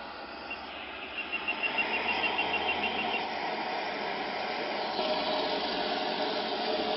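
Steady road and engine noise heard inside a car cabin while driving, a continuous rush that gets louder about a second in, with a faint steady whine appearing near the end.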